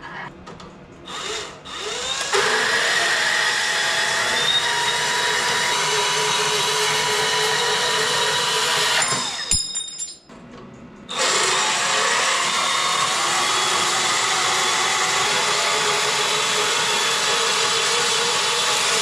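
A handheld electric power tool working steel. It spins up about two seconds in, runs steadily for about seven seconds and stops, then starts again a couple of seconds later and runs on for about eight seconds.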